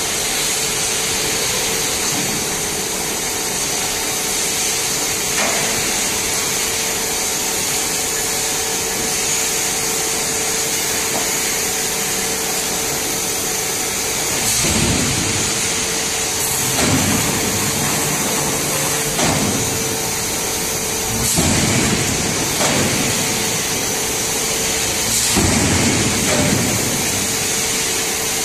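Steady drone and hum of forging-shop machinery. From about halfway, a large forging press works a red-hot billet in its dies, with a louder surge every two to four seconds and an occasional sharp knock.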